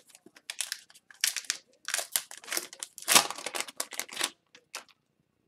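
Foil wrapper of an Upper Deck Artifacts hockey card pack crinkling and tearing as it is opened by hand: a quick, irregular run of crackles that stops a little before the end.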